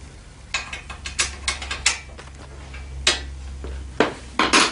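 Irregular sharp clicks and knocks, about eight of them, as bolts and rack hardware are handled and fitted by hand while the front rack of an ATV is bolted on.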